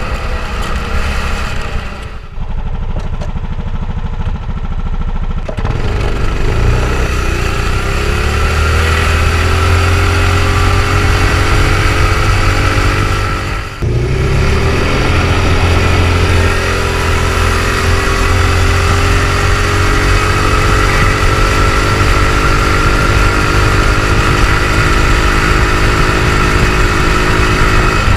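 A go-kart's small four-stroke engine running under way through a Yamaha R1 motorcycle muffler. Its pitch rises as it speeds up, then holds fairly steady. The sound breaks off briefly twice.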